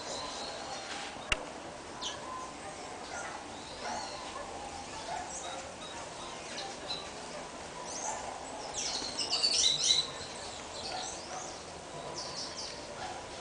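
Small wild birds chirping in short calls throughout, building to a dense burst of chirps about nine seconds in. A single sharp click a little over a second in.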